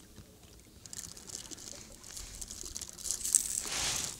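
Water trickling and splashing beside a small boat, with light scattered clicks, growing louder near the end.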